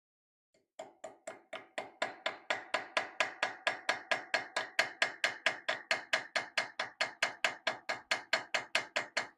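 Small hammer tapping a piece of brass into a dovetail inlay groove in a wrought iron sword cross-guard: quick, even metallic taps about four a second, lighter at first and then steady.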